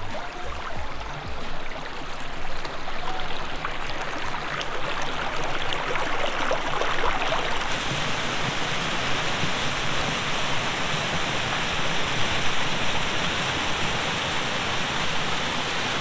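Shallow stream water rushing and splashing over rock ledges, a steady noisy rush. About halfway through it gives way to a brighter, fuller rush of a small waterfall pouring into a pool.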